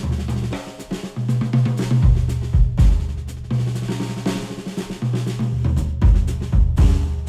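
Instrumental music with a punchy drum kit (kick, snare and rimshots) over a stepping bass line, played back through a HIFIMAN planar-magnetic headphone and picked up by microphones at the earcups.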